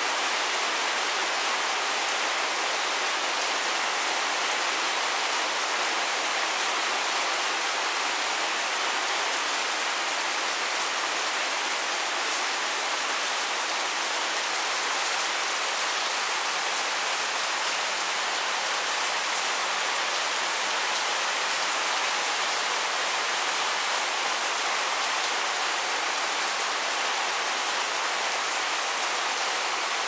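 Heavy rain pouring steadily onto grapevine leaves and a paved yard: a dense, even hiss that holds without let-up.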